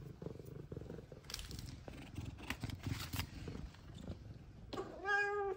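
F2 Savannah cat purring while a hand strokes its head, with soft rubbing noises of the fur. Near the end it gives one loud, drawn-out meow.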